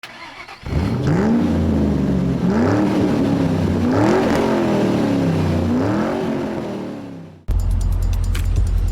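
C6 Corvette V8 engine revved four times, each rev rising and falling in pitch, then fading out. About seven and a half seconds in, it cuts abruptly to a steady low drone with light ticks.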